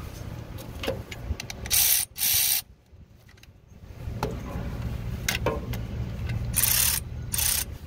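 Hand ratchet tightening a nut on the alternator's terminal stud: two pairs of short raspy clicking runs, about two seconds in and again near the end, with scattered small clicks over a low steady rumble.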